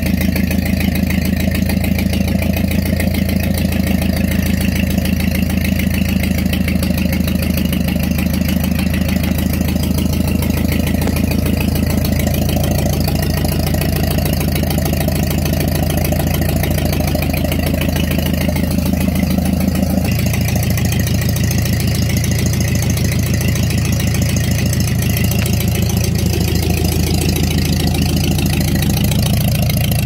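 Ford 8N tractor's four-cylinder flathead gas engine idling steadily, freshly started. Its tone shifts slightly about two-thirds of the way through.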